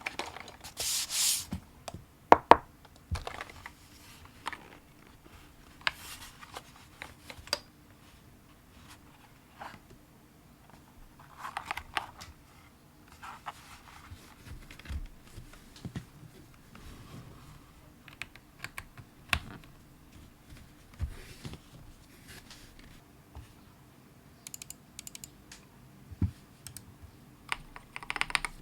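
Irregular, sparse keystroke clicks on a KBD67Lite R2 custom mechanical keyboard with C³EQUALZ Tangerine linear switches, a polycarbonate plate, gasket mount and SA-profile keycaps. A few short scraping or rustling bursts come in between, about a second in, near the middle and near the end.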